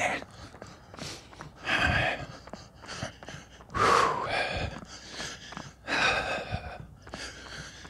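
A man breathing hard while running: three heavy breaths about two seconds apart.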